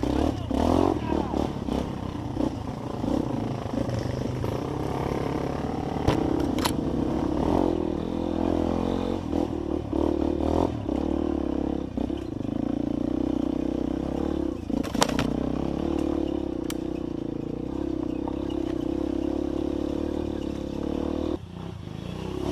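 Trail motorcycle engine running steadily, with scattered knocks and rattles, one sharp knock about two-thirds of the way in.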